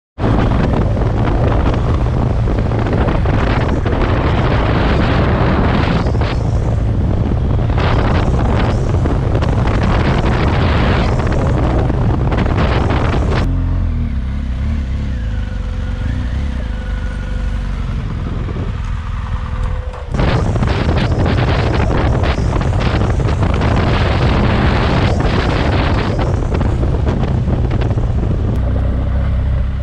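Adventure-touring motorcycle engine running under way, with heavy wind buffeting on the helmet-mounted microphone. About 13 s in it drops to a quieter, slower stretch with a faint steady whine, and the full engine-and-wind sound returns about 20 s in.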